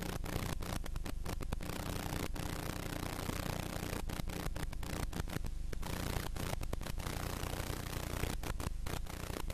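Steady hiss with a low hum underneath, broken by many brief dropouts: recording noise on a blank stretch of an old tape transfer, before any program sound begins.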